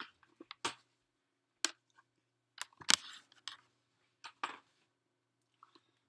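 A handful of sharp, irregularly spaced clicks and taps, the loudest about three seconds in, over a faint steady electrical hum.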